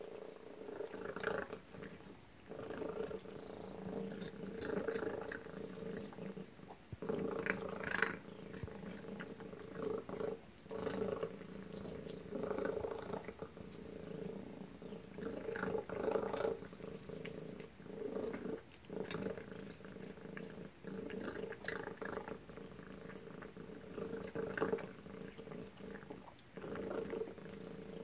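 Cat eating wet food from a stainless steel bowl: chewing and lapping come in irregular bursts every second or two.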